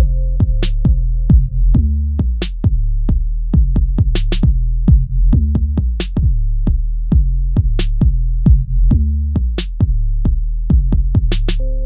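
Electronic hip-hop instrumental: a drum-machine beat of sharp snare and hi-hat hits over a heavy, sustained bass line. A held synth tone drops out just after the start.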